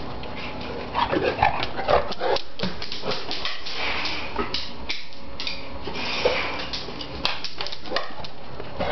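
A large dog vocalising in short bursts, mostly in the first few seconds.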